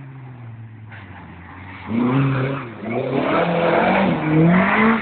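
Rally car's engine, a red Volvo saloon, revving hard on a gravel stage: faint at first, then loud from about two seconds in, its pitch climbing and dipping again and again as the driver works the throttle and gears.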